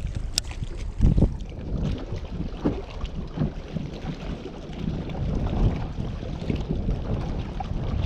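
Strong wind buffeting the microphone in uneven gusts, with a single sharp click about half a second in.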